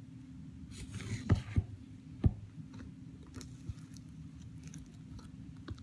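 Iceberg slime's hardened, glitter-topped crust crackling and popping as it is pressed: a short crackle about a second in, then three sharp cracks within about a second, followed by scattered small ticks.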